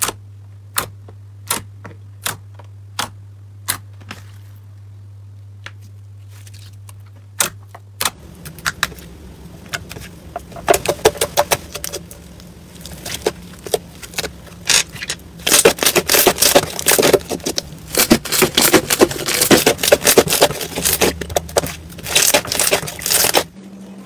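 Hands pressing and kneading slime. First come single sharp pops about every 0.7 s as air pockets burst, then, from about a third of the way in, a dense and louder run of crackling and popping as a second slime is squeezed and folded.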